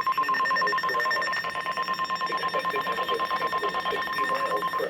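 NOAA Weather Radio warning alarm tone: one steady, high-pitched tone near 1 kHz, overlaid with a fast, even buzzing crackle, cutting off near the end.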